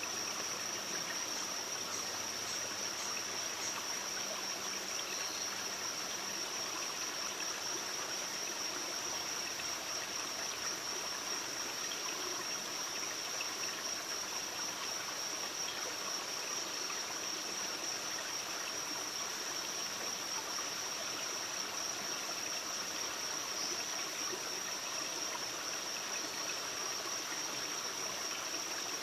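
Steady rushing of running water, unchanging throughout, with a constant thin high-pitched tone held above it.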